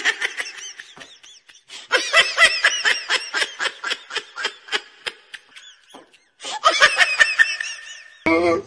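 Laughter: quick, rhythmic bursts of high-pitched laughing, several a second, in three bouts broken by short pauses about a second and a half in and about six seconds in.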